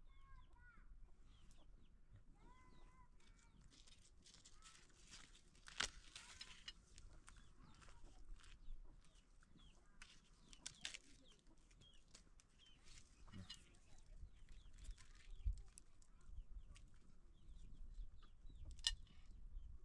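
Faint chickens clucking, with a few short sharp knocks scattered through.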